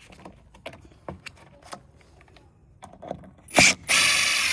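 Light clicks and taps of handling, then a power drill whirs briefly about three and a half seconds in and starts running steadily, driving a screw to pull the bottom of the door frame over.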